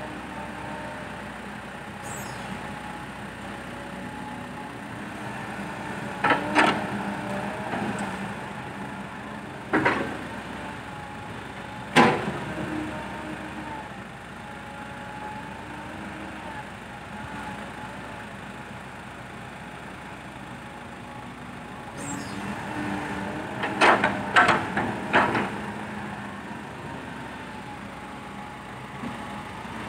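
Heavy diesel machinery at an excavator-and-dump-truck earthworks site running steadily, broken by loud sudden bangs: single ones about a quarter, a third and two fifths of the way in, then a quick cluster of bangs about four fifths of the way through.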